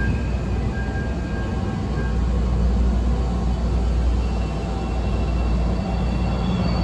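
CTA 5000-series rapid-transit train at the platform, giving a steady low rumble and hum, with a faint high whine coming in about halfway through.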